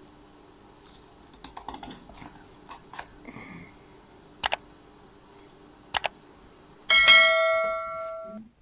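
A few light clicks and taps, two sharp double clicks, then one loud strike that rings in several clear tones for about a second and a half before cutting off suddenly.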